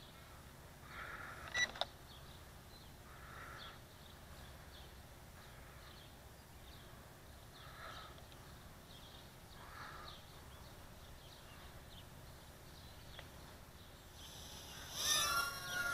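Faint outdoor background with a bird calling every couple of seconds and higher chirps, and a sharp click about a second and a half in. About a second before the end, the Estes Proto X nano quadcopter's tiny motors spin up with a high, wavering multi-tone whine, the loudest sound here.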